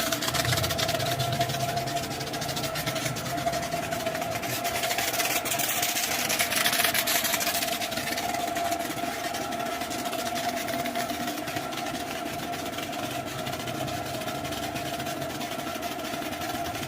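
Pressure washer running steadily: a constant whine from its motor and pump under the hiss of the water spray, which grows louder for a few seconds around the middle.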